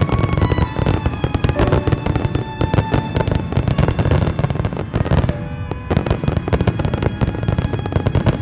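Aerial fireworks display going off in a rapid, continuous barrage of bangs and crackling, with music underneath.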